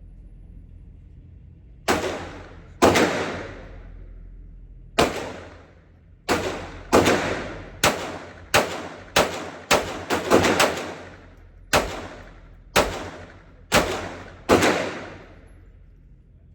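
Glock 19 9mm pistol fired about fifteen times at an uneven pace, some shots spaced a second or more apart and a quick run of several around the middle, each shot trailing off in a short echo.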